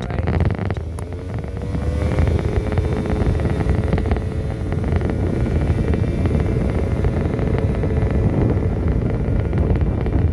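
Genuine Roughhouse 50cc two-stroke scooter engine running under way. Its note climbs about a second in, then holds steady, under heavy wind rumble on the microphone.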